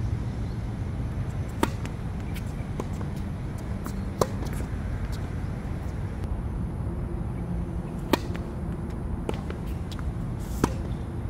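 Tennis ball struck by rackets in a rally: four sharp pops about two and a half to four seconds apart, with fainter ticks of the ball bouncing on the hard court between them, over a steady low rumble.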